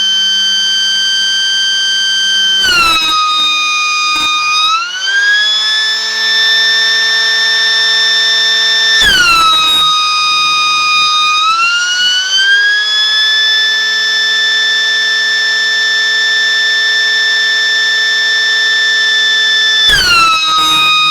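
Small battery-powered electric mechanical siren running with a steady wail. Its pitch drops abruptly three times, each with a short knock, and twice climbs back up over a second or two. The pitch rises as the air inlet is covered, when the motor draws less current.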